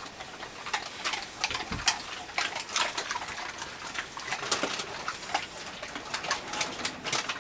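Dogs crunching and chewing small hard treats: many irregular sharp clicks and crackles, several a second, with one low thump about two seconds in.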